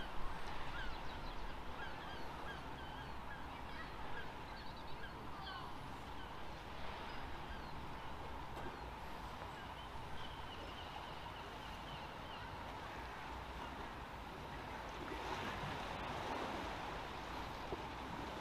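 A flock of geese honking, many overlapping calls in the first half that thin out and fade. Under them a steady hum, and a wash of water and wind that grows louder near the end.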